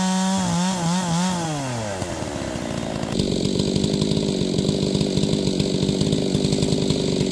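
Large two-stroke chainsaw on a chainsaw mill running at full throttle. Its pitch wavers, then drops as it takes the load. From about three seconds in it runs steadily under heavy load, ripping a slab from a hard beech log.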